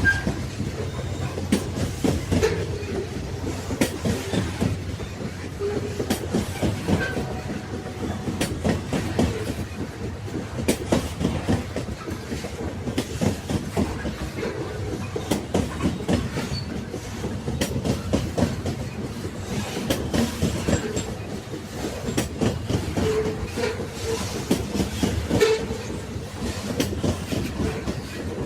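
Railway wagons rolling along the track: a steady low rumble with the wheels clicking and clattering over the rails many times a second.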